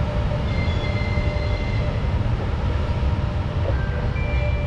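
EP1M electric locomotive running light and moving off along the track: a steady low rumble of its motors and cooling fans, with faint thin high tones that come and go.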